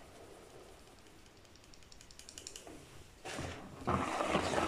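Flour being sifted through a hand sieve, shaken over the bowl with faint rapid ticking. From about three seconds in, a wire whisk stirs the batter in a bowl, louder and scraping.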